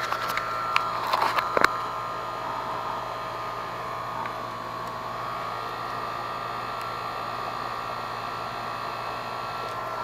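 A steady, even machine-like hum with a few fixed-pitch tones in it, and a few small clicks in the first couple of seconds.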